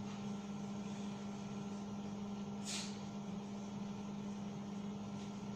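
A steady low hum, with a felt-tip marker writing on a whiteboard; one short scratchy stroke stands out about halfway through.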